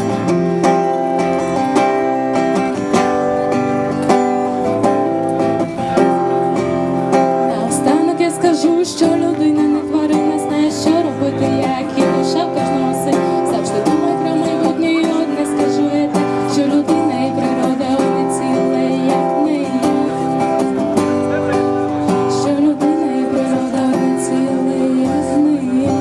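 Acoustic guitar strummed in steady chords, accompanying a woman singing into a microphone through a loudspeaker.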